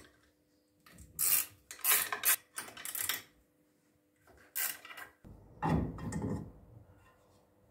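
Short scraping and rubbing noises of steel parts being worked by hand on a lathe's cross slide and tool post, about six separate strokes with pauses between them, the longest and deepest near six seconds in.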